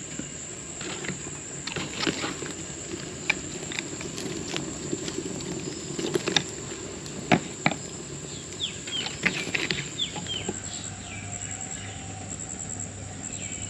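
Scattered clicks and cracks from burning firewood and embers as the wood is pulled out of a clay stove's fire opening. Several short, falling bird chirps come about two-thirds of the way in, over a steady high insect whine.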